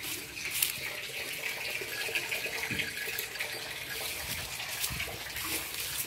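A cow urinating, a steady gushing stream splashing onto the straw and ground.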